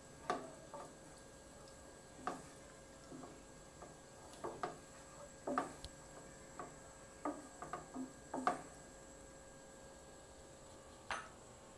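Wooden spoon tapping and scraping against a non-stick frying pan while stirring moong dal frying in masala: scattered, irregular light knocks over a faint steady hum.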